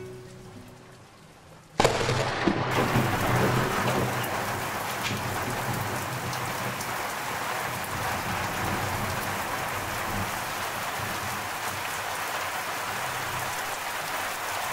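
Heavy rain of a mountain thunderstorm pouring down steadily, with a sudden thunderclap and low rumble about two seconds in.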